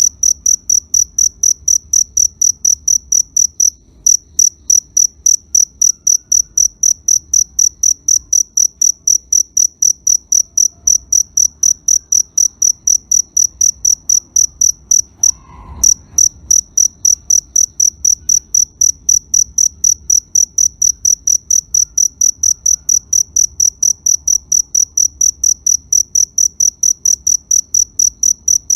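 A cricket chirping: a high-pitched chirp repeated evenly about three times a second, with brief pauses about four seconds in and near the middle.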